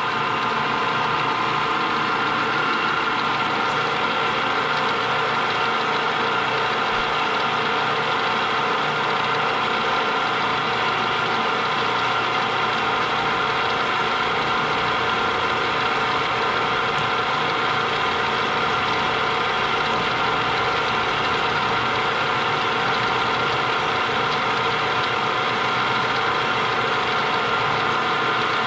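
Small milling machine running steadily, its spindle and gear train giving an even mechanical whine of several steady tones.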